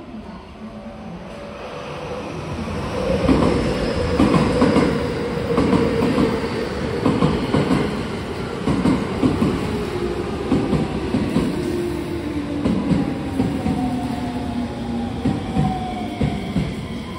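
JR West 223 series 2500 electric train pulling into the platform: wheels clacking over rail joints, with a motor whine that falls in pitch as the train slows to stop.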